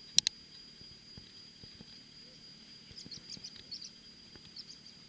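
A single hunting-rifle shot, a sharp crack just after the start, fired at a small reindeer buck. Afterwards a few faint high chirps sound over a faint steady high tone.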